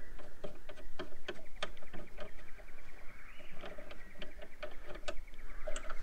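Fingers working behind plastic boot trim, turning the tail-light assembly's wing nut on its long threaded stud: irregular small clicks, taps and scrapes.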